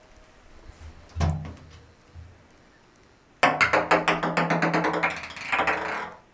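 Ping-pong ball bouncing and rattling rapidly around a bathtub as a cat bats at it, the tub ringing under it: a quick run of clicks for nearly three seconds, starting about three and a half seconds in. Before it, one dull thump about a second in.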